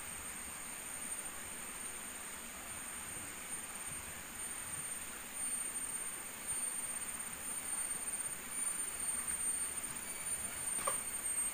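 Forest stream flowing under a steady high-pitched insect drone. From about halfway through, louder uneven rustling and splashing join in at the water's edge.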